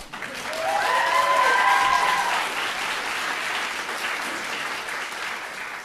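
Audience applauding, with a few voices cheering over it in the first couple of seconds; the applause slowly dies down.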